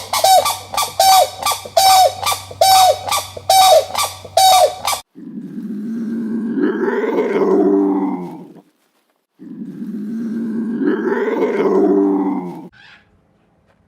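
A bird squawking in a fast run of short, sharp, repeated calls, about one and a half a second, which stops abruptly about five seconds in. Then come two long, low animal calls of about three and a half seconds each, with a brief pause between them.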